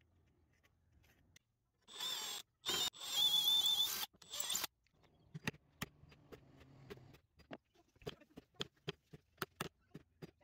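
Harsh scraping with a wavering squeal in three short bursts, then a wood chisel pressed by hand into a wooden handle blank along a pencil line, cutting with sharp ticks about three times a second.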